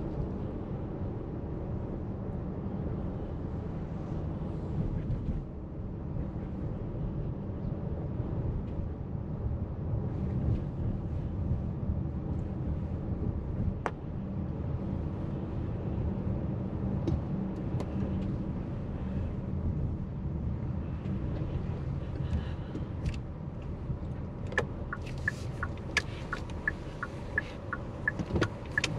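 Car driving, heard from inside the cabin: a steady low rumble of engine and tyre noise. A turn-signal indicator ticks evenly over the last few seconds as the car turns.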